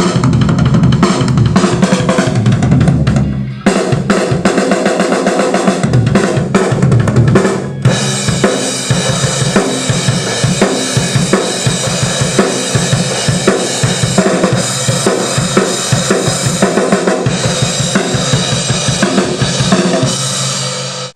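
Rock music led by a full drum kit, with kick drum, snare and cymbals, loud and with pitched instruments under it. The cymbals open up into a steady wash from about eight seconds in.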